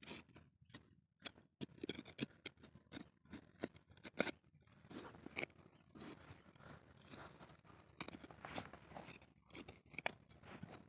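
Fingers scraping and crumbling loose dry soil and small stones while digging carefully by hand: a faint, irregular run of short scrapes and gritty clicks.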